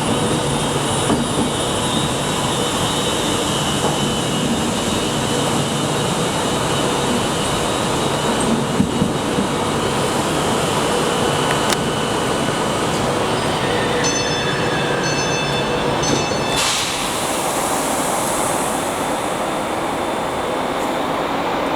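Train running in a station, a steady rumble and hiss. About two-thirds of the way in, a high tone pulses on and off for a couple of seconds.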